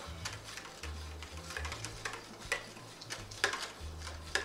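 A utensil stirring beaten egg and creamer in a plastic dish, with irregular light clicks and scrapes against the dish. A few sharper taps come in the second half.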